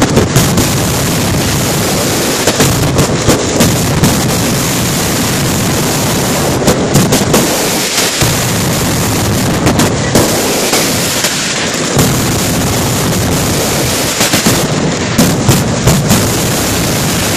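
Mascletà firecracker barrage: a dense, continuous crackle of firecrackers with sharper bangs scattered through it, loud throughout.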